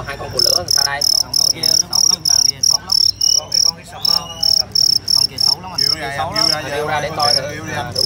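Male fighting field cricket chirping loudly in a quick, even rhythm of about three high-pitched chirps a second, as the rival crickets are stirred up with a grass tickler for a fight.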